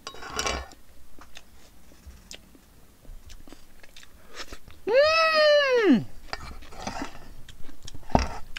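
Mukbang eating sounds: a noodle slurp just after the start, then chewing and small clicks of chopsticks against a metal pot. About five seconds in comes a loud, high-pitched vocal sound lasting about a second, rising and then falling in pitch.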